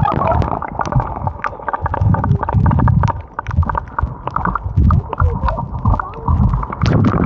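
Uneven low rumbles, a few every couple of seconds, with scattered crackles and clicks: shallow sea water sloshing, and wind buffeting the microphone.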